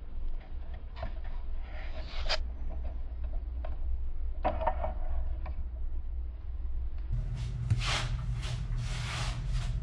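Rustling, rubbing and small knocks of someone handling things close to the microphone, over a steady low hum. A louder run of rustling comes near the end.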